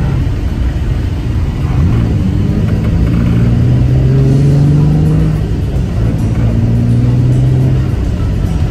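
Nissan 350Z's 3.5-litre V6 engine pulling the car along, its pitch rising gently for a few seconds, dropping off briefly a little past the middle as for a gear change, then pulling again.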